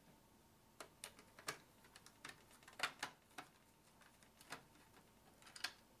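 Irregular light clicks and taps of a screwdriver and small screws against the metal chassis of an Alienware X51 desktop as screws are backed out of a cover piece. There are about a dozen, with the loudest pair near the middle.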